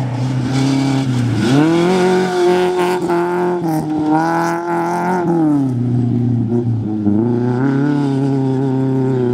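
Rally car engine revving hard on a dirt stage. The pitch climbs about a second and a half in, holds high for a few seconds, drops around five and a half seconds as the throttle comes off, then climbs again near seven seconds.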